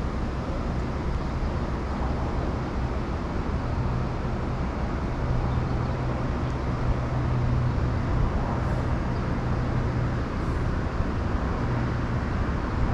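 Steady outdoor city rumble of road traffic, with a low drone that swells through the middle and eases off near the end.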